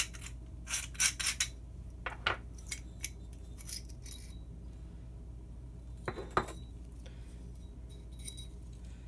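Porcelain light socket and its loose porcelain ring clinking and knocking as they are handled and set down on a hard workbench: a run of light clinks in the first few seconds, then a louder knock about six seconds in.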